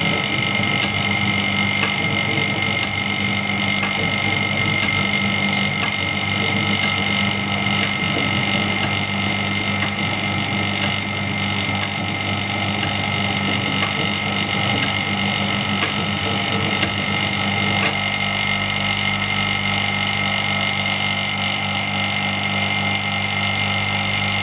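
Vacuum pump of a heated LCD separator machine running with a steady hum, its low tones shifting slightly about 18 seconds in.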